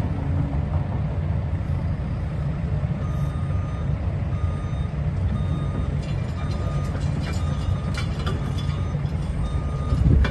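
JCB JS220LC tracked excavator's diesel engine running steadily while its travel alarm beeps, a single high tone repeating about once every 0.8 s from about three seconds in. A few sharp clicks sound near the middle.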